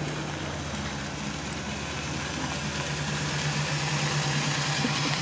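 Daihatsu Midget three-wheeler's small two-stroke engine running steadily at low speed as it drives up, growing a little louder as it comes close.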